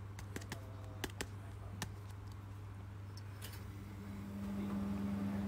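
A few sparse light clicks and taps of trading cards and hard plastic card holders being handled on a table, over a steady low hum that grows louder near the end.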